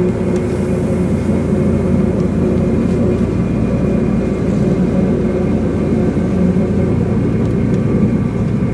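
Diesel engine of a VT 98 Uerdingen railbus (DB class 798) running with a steady low drone and a faint constant hum above it, unchanging throughout.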